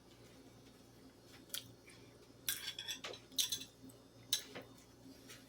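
A fork clinking and scraping on a plate: a string of light, short clicks.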